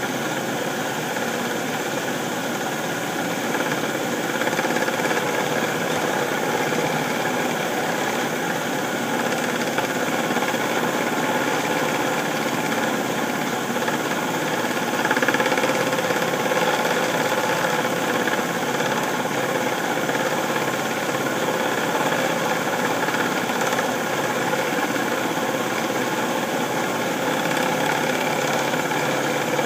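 Small metal lathe running steadily while light taper passes of a few thousandths of an inch are turned on a pipe maker's spoon bit, a constant motor-and-spindle hum. It grows briefly a little louder about halfway through.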